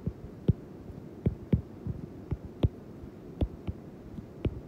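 Stylus tip tapping and clicking on a tablet's glass screen while handwriting: irregular sharp taps, about two a second, over a faint steady hum.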